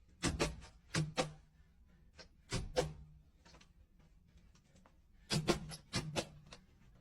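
Scattered sharp knocks and clicks in two clusters, a handful in the first three seconds and another run from about five seconds in, with near quiet between.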